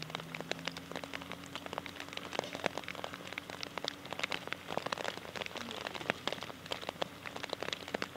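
Rain falling: dense, irregular patter of drops ticking on a nearby surface, with a faint steady low hum underneath.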